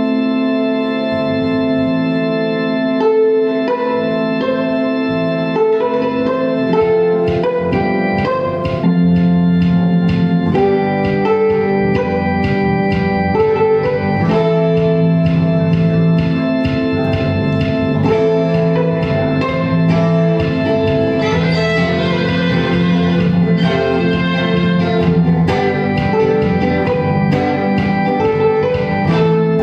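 Live band playing an instrumental passage, led by sustained keyboard chords in an organ-like tone, with a steady beat coming in about a second in.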